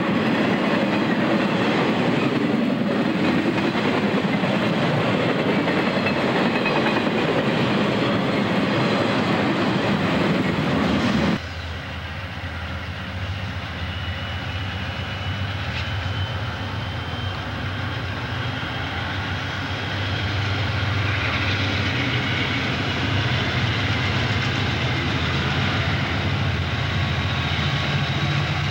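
Intermodal freight cars rumbling and clattering past on the rails, cut off suddenly about eleven seconds in. This is followed by the lower, steady drone of an Amtrak F40PH diesel locomotive's engine as the passenger train approaches, growing louder near the end.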